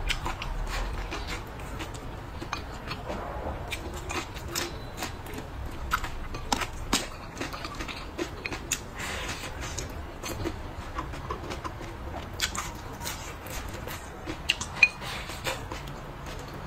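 Close-miked mouth sounds of eating braised pork and blistered green peppers: chewing, lip smacks and slurps, with chopsticks clicking against a ceramic bowl.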